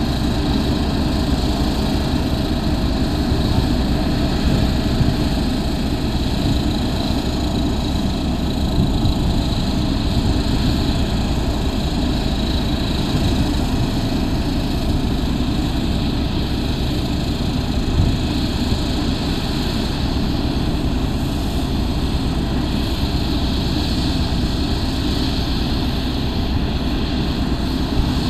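Diesel engine of an Ammann ASC100 single-drum soil compactor running steadily as the roller drives over gravel aggregate. A single brief knock about two-thirds of the way through.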